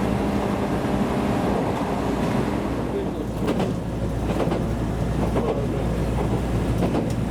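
Train running on the line, a steady rumble with a few short clicks in the second half.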